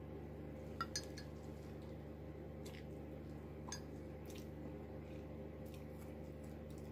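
Scattered small clicks and taps of fingers picking at shrimp on a ceramic plate, with a sharper pair of clicks about a second in, over a steady low hum.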